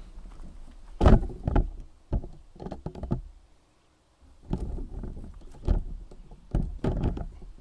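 A run of irregular knocks and clunks from handling, the loudest pair about a second in, then more in clusters after a short lull in the middle.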